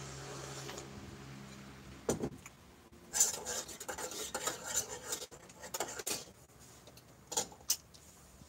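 Light clinks and clatter of small hard objects being handled, coming in several short clusters, with two sharp clicks near the end. A faint low hum fades out in the first two seconds.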